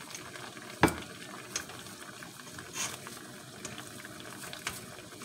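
Water boiling steadily in a pot under a stainless steel colander, as plastic-wrapped kenkey balls are set into the colander. A loud knock about a second in and several lighter clicks from the wrapped balls and metal colander being handled.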